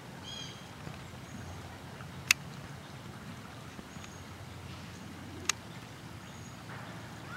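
A low steady background rumble with a few short, high bird chirps, one just after the start, and two sharp clicks about three seconds apart, the first the louder.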